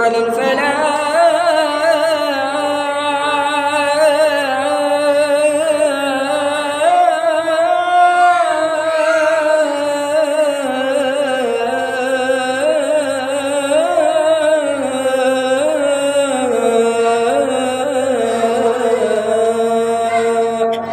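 A muezzin's solo male voice calling the adhan, the Islamic call to prayer, into a microphone. He sings one long, heavily ornamented phrase that winds up and down in pitch for about twenty seconds and stops just before the end.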